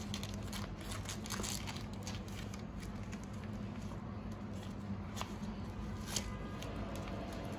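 Zongzi leaves crinkling and rustling as hands fold them into a wrapper around sticky rice, with scattered small crackly ticks. A steady low hum runs underneath.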